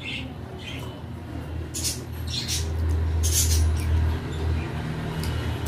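Mouth noises of someone eating: about four short, wet smacking or sucking sounds over a steady low hum.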